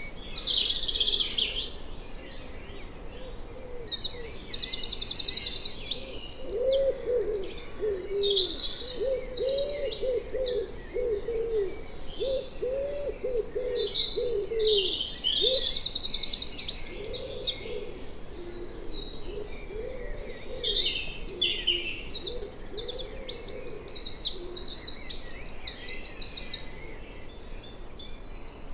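Woodland bird chorus: several songbirds singing high, rapid trilled phrases that overlap. Beneath them a lower bird hoots in a repeated series, starting about a quarter of the way in and fading out a little past halfway.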